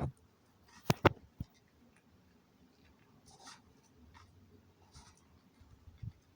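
Dried eggshells being crushed and ground fine: a few sharp cracks around the start and about a second in, then faint, scattered scratchy crunching.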